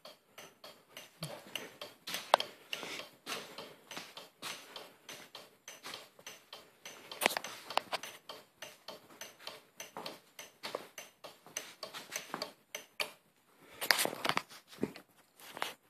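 Turn-signal flasher on a Honda CB360 clicking in a rapid run of short ticks, with a few louder knocks and rustles among them.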